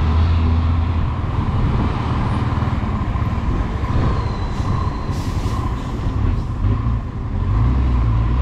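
Honda CBX 250 Twister's single-cylinder four-stroke engine running while the motorcycle is ridden, along with wind noise; the engine note is strongest at the start and again near the end.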